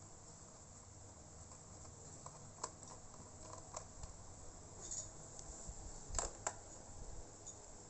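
Faint scattered clicks and taps of a screwdriver and fingers working on a laptop's plastic case during disassembly, with two sharper clicks close together about six seconds in.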